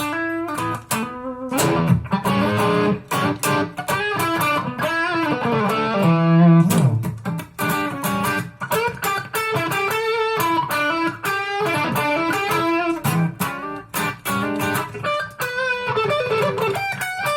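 Electric guitar played through a Zoom G5n multi-effects unit on its clean Marshall amp simulation: a busy run of picked notes and chords, with a bent note about halfway through.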